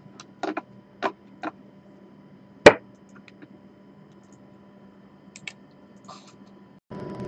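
A few light clicks and taps over a faint steady hum, with one sharp, much louder click about two and a half seconds in; near the end the sound cuts out for an instant before a louder room noise comes in.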